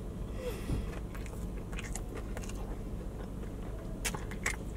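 A person chewing a mouthful of a soft fish sandwich, with a few soft wet clicks and smacks of the mouth.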